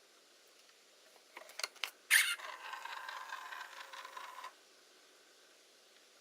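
Hasselblad Winder CW in use: a few light clicks, then a sharp shutter clack about two seconds in, followed by the winder's motor running for about two and a half seconds with a steady squeaky tone over it. The squeak is the sign that the winder needs lubricating.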